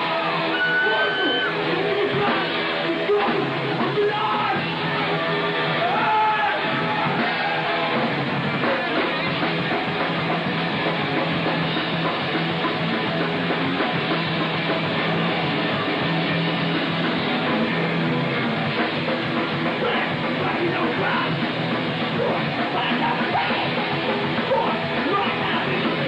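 Thrash metal band playing live: distorted electric guitars and drum kit at a steady, loud level, with shouted vocals.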